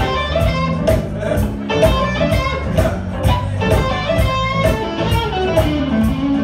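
Blues band music with no singing: an electric guitar plays a lead fill over bass and drums keeping a steady beat.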